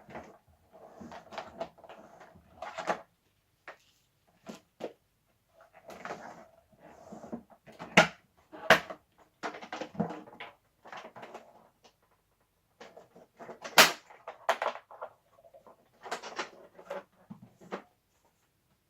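Parts of a Numatic George vacuum cleaner and its packaging being handled: irregular knocks, clicks and rustles, with sharp clacks about 8 and 14 seconds in. The vacuum's motor is not running.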